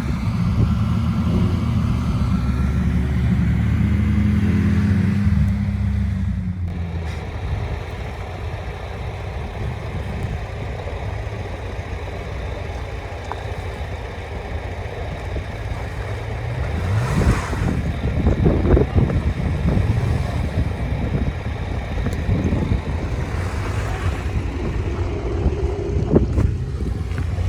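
Off-road vehicle engine revving hard under load for about six seconds, then easing to a lower, steady run, with a few short bursts of noise later on. The vehicle is working through soft mud, where it bogs down.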